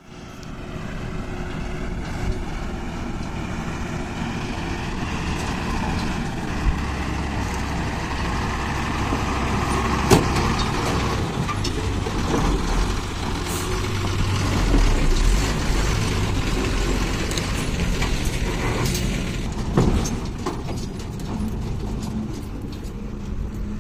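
Diesel engine of a borewell drilling rig truck running steadily as the truck drives slowly over rough, stony ground, with a few sharp knocks from the body jolting over the bumps.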